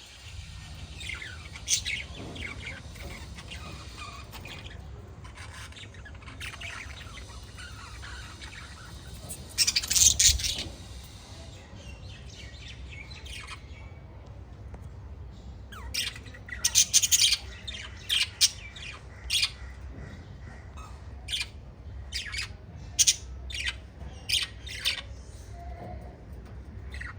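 A group of small pet parrots chirping, short high calls in scattered bursts: a loud cluster about ten seconds in and a busier run of quick chirps in the second half, over a steady low hum.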